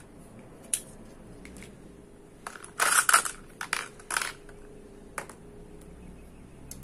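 Hard plastic toy parts clicking and rattling as a B-Daman's clear quick-loader magazine tube is handled and fitted. A single click comes early, then a cluster of loud rattling clicks about three seconds in and a few more just after four seconds.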